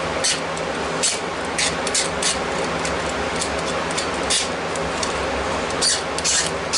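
Sharp razor knife scraping burrs off the edges of a Kydex pouch in short, irregular strokes, over the steady noise of shop fans.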